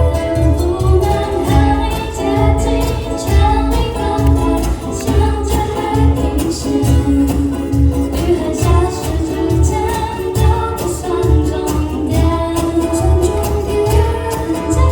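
A live band playing a pop song: ukuleles strummed over a steady drum beat, with a female lead vocal singing.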